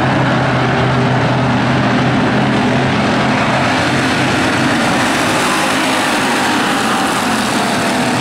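A pack of Sportsmen stock cars racing around a paved oval, their engines running together in a loud, steady blend.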